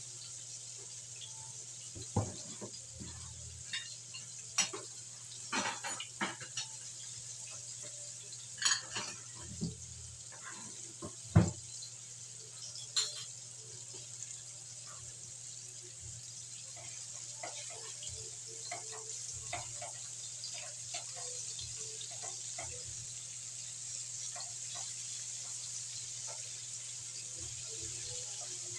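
Chicken pieces frying in oil in a wok, a steady sizzle throughout. Several sharp clinks and knocks come in the first half, the loudest about eleven seconds in, and small pops and crackles become more frequent in the second half.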